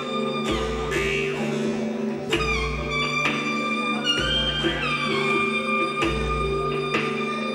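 Music accompanying a Hmong folk dance: a sustained low drone with a deep bass beat about every two seconds, under a melody of held notes that slide from one pitch to the next.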